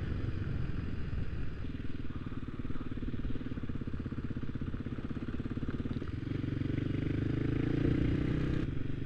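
Motorcycle engine running steadily while riding over a stony gravel track. It pulls harder and louder from about six seconds in, then eases off near the end.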